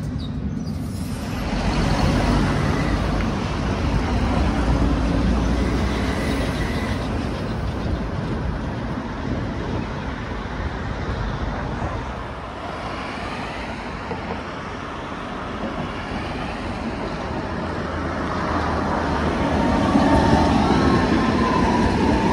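Tram running on street track: a steady rumble of wheels and motors that swells about two seconds in, eases off in the middle and grows again near the end, where a thin whine comes in.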